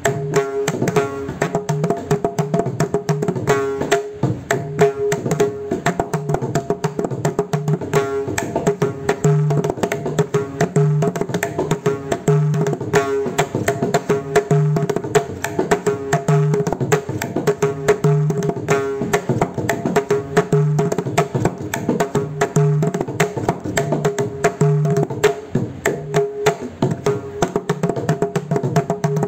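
Mridangam played solo: rapid fingered strokes on the tuned right-hand head ring at one steady pitch, and deep bass strokes on the left head land every second or two. The pattern is a mora-muktaya composition in khanda jati triputa tala.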